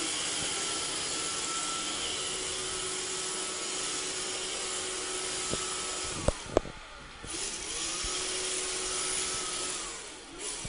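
Robot vacuum cleaner running with a steady whir and hum. About six seconds in come two sharp knocks; then the motor sound drops away briefly and winds back up in pitch. It dips again near the end.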